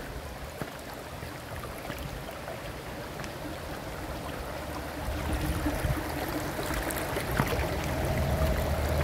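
A small rocky stream running, getting steadily louder as it is crossed on stones, with a few faint knocks of footsteps on rock. A low rumble builds from about halfway through.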